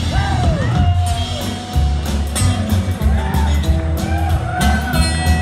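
Live band music from the audience: acoustic guitar, upright bass and drums, with whoops from the crowd.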